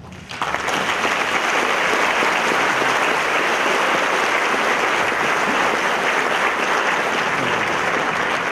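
Audience applauding, a dense steady clapping that starts about half a second in.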